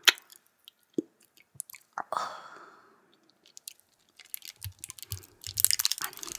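Plastic jelly-drink bottle handled close to the microphone. A sharp click, then a tap, then a short fading crackle. Near the end comes a dense run of crackling plastic clicks with a few dull thuds.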